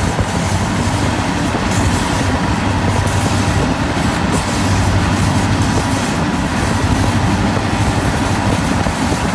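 A Central Oregon and Pacific freight train running steadily, heard from a vehicle pacing alongside it, blended with the vehicle's steady road and wind noise and a low hum.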